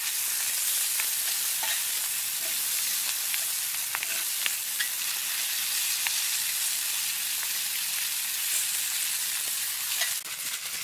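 Sausages, onions and green peppers sizzling steadily in oil in a cast iron skillet, with a few light clicks of a metal spatula being worked through the pan.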